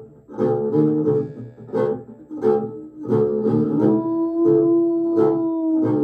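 Live acoustic music on folk instruments: rhythmic twanging plucks about every 0.7 seconds, joined about four seconds in by a long held low note lasting about two seconds.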